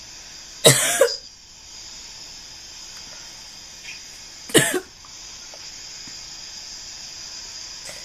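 A person coughing twice, about four seconds apart, each a short harsh cough.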